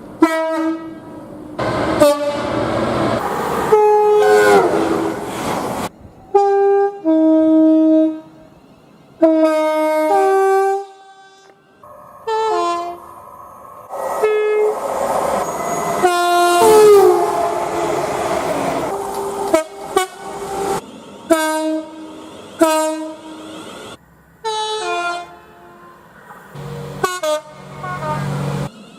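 Train horns sounding in a rapid series of separate blasts, each several seconds or shorter, some sounding two or more notes together and a few sagging in pitch as they die away. The blasts start and stop abruptly, with the running noise of trains passing between some of them.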